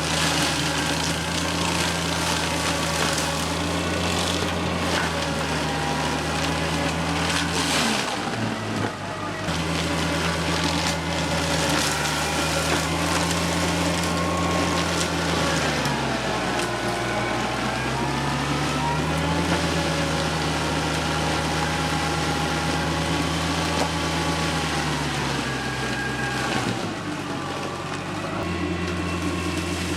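TYM tractor's diesel engine running steadily while driving the PTO-powered Baumalight MP348 forestry mulcher. The engine and the mulcher's whine sag in pitch three times and recover, the longest dip about halfway through, as the machine lugs down under load.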